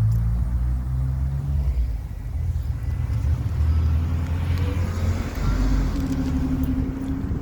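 Street traffic: a car engine hums low and steadily, and a vehicle passes with tyre noise swelling and fading around the middle.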